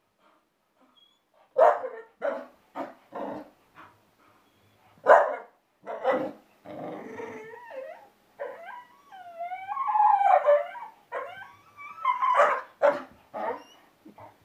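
Bull terrier puppy barking in play, a string of short, sharp barks broken up by a long, wavering, howl-like whine about two-thirds of the way through.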